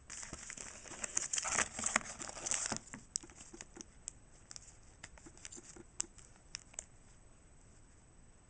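Foil booster pack wrapper crinkling as it is torn open, for about the first three seconds, followed by scattered light clicks of the trading cards being handled.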